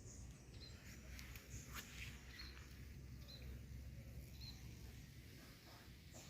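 Near silence: a faint low hum with a few soft clicks and several faint, short, high chirps.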